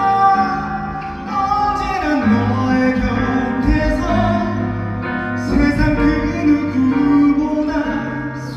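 A ballad sung by the groom over a piano-and-keyboard backing track, with long held notes.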